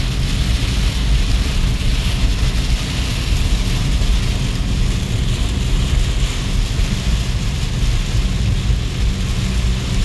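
Heavy rain beating steadily on a Fiat Uno's roof and windshield, heard from inside the moving car over a constant low rumble of engine and tyres on the wet road.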